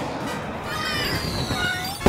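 Cartoon firework sound effects: falling whistling tones over a noisy hiss of sparks, with background music.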